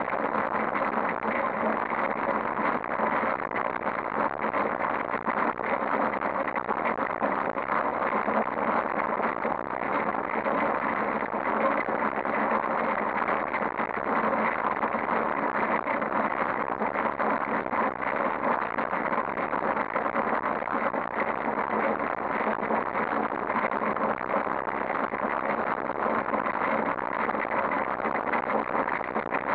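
Steady rushing buzz of a bicycle rolling over rough asphalt, picked up through the handlebar by a camera clamped to it.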